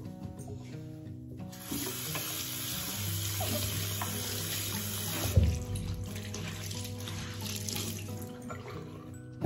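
Tap water running into a ceramic bathroom washbasin as a cloth is rinsed and wrung under the stream, splashing in the bowl. The water is strongest from about one and a half seconds in to about five seconds, there is a brief knock just after that, and soft background music plays underneath.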